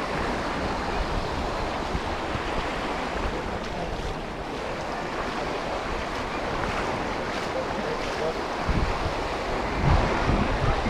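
Steady wash of sea waves on a sandy beach, with wind buffeting the microphone in low gusts near the end.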